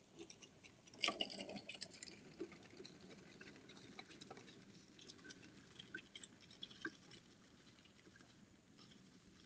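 AgriFab push lawn sweeper rolling across the lawn, heard through a security camera's microphone: faint, irregular clattering and crackling from its brushes and wheels, loudest about a second in.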